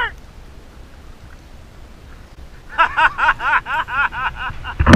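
Low wind-and-water noise for about two and a half seconds. Then a voice in quick, repeated rising-and-falling syllables, and a sharp thump at the very end.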